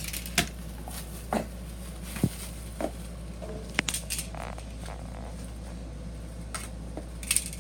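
Irregular rustles and sharp clicks of plastic-wrapped packaging being handled and pulled open, over a steady low hum.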